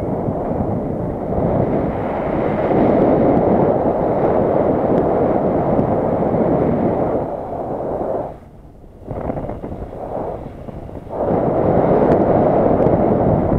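Wind buffeting the microphone: a loud, uneven rush that drops away sharply about eight and a half seconds in, returns, and dips again before coming back strong near the end.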